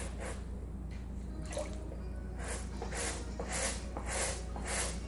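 Stiff bristle scrub brush scrubbing a wet car floor mat sprinkled with baking soda. Quiet wet sounds at first, then rhythmic back-and-forth strokes, about two a second, from about halfway through.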